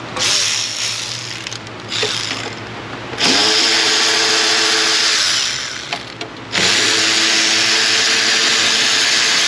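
Power tool spinning out bolts: a short burst near the start, then two longer runs, each winding up quickly to a steady motor whine.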